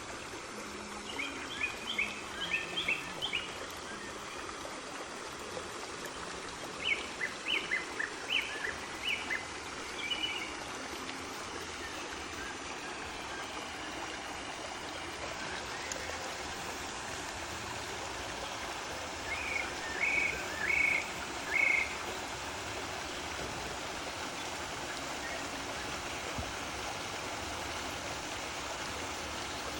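Steady rush of flowing water, with a bird calling in three bouts of quick, high chirps: near the start, about a third of the way in, and again about two-thirds in.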